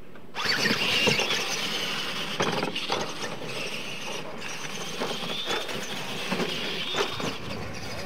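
RC monster trucks racing over dirt: high motor and gear whine that rises as they accelerate, with tyres scrabbling on the dirt and a few sharp knocks from landings and impacts. The sound starts suddenly just after the start.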